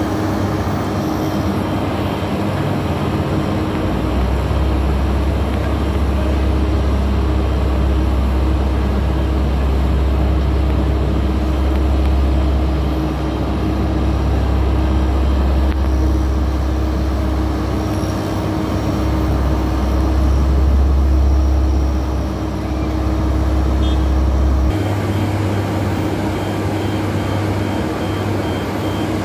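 Heavy road-construction machinery running steadily, with a strong deep rumble that drops away abruptly about three-quarters of the way through.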